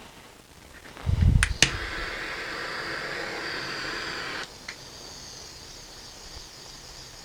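Heat gun switched on with a click and thump about a second in, blowing steadily to shrink heat shrink tubing over a model's shock spring; a little after four seconds its sound drops to a quieter steady blow.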